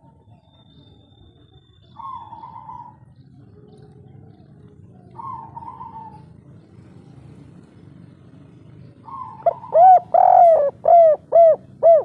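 Spotted doves cooing: a few softer coos, each about a second long, then near the end a loud run of about six arching, rising-and-falling coo notes.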